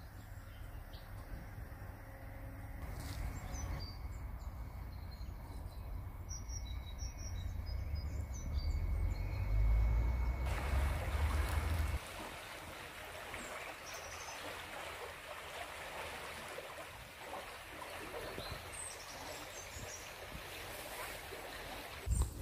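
Small birds chirping over a low rumble. About halfway through, this gives way to the steady rush of a muddy, rain-swollen stream, with a few more chirps and a thump near the end.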